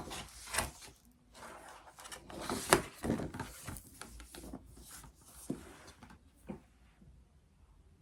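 Irregular small knocks, clicks and rubbing of objects being handled, with the sharpest knock a bit under three seconds in and fewer, fainter taps toward the end.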